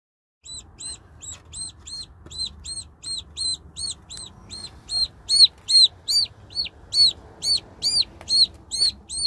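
A baby poultry bird peeping steadily in a cardboard carrying box: a regular string of high, arched peeps, about three a second, that grow louder about halfway through.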